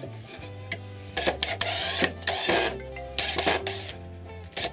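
Cordless drill-driver driving screws into a wooden jig in several short bursts, over steady background music.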